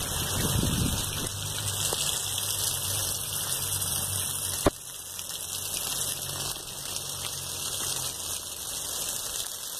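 Heavy rain falling steadily on a paved street, a constant hiss. One sharp click comes about halfway through, and after it the rain sounds somewhat quieter.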